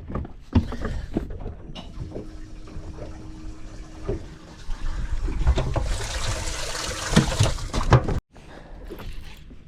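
Water splashing and sloshing, louder for a second or so past the middle, with scattered knocks. It cuts off abruptly near the end.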